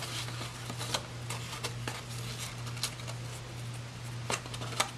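Satin ribbon rustling and brushing against a cardstock box as hands tie it into a bow, with a few short soft ticks. A steady low hum runs underneath.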